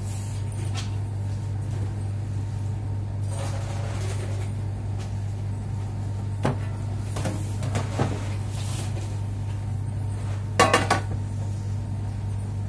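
Cashew kernels being pushed by hand through the filler hole of a square metal tin on a platform scale, giving a few light clinks and knocks against the tin. The loudest is a quick cluster of three about ten and a half seconds in. A steady low hum runs underneath.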